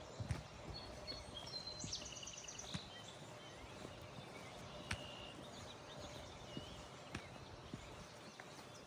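Quiet outdoor ambience: scattered light taps and clicks, with a few short bird chirps and a brief trill about two seconds in.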